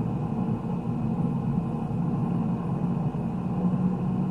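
Motorcycle engine running steadily under road and wind rumble, with no sudden changes.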